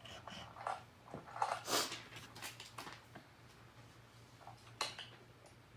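Light clicks and rustles of plastic LEGO pieces being handled, in scattered short bursts over a low steady hum.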